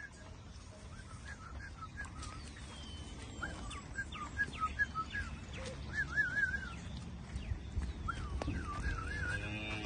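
Birds chirping: many short, repeated calls and warbling trills, over a low background rumble. Near the end comes a short rising call from another animal.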